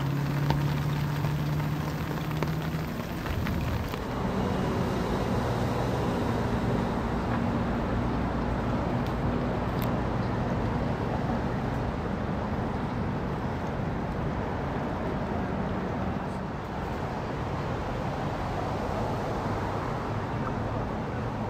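Engines running at low speed, their hum shifting in pitch a few times, over steady outdoor noise.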